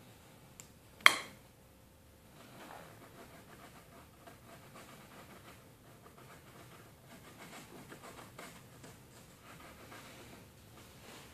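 A single sharp click about a second in, then faint scratchy rubbing with small ticks: a fingertip working baking soda and super glue over a crack in a car dashboard.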